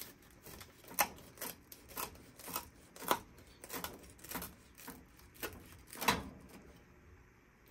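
Kitchen knife sawing through a toasted, buttered sourdough grilled cheese sandwich, the crisp crust crunching with each stroke, about two crunches a second.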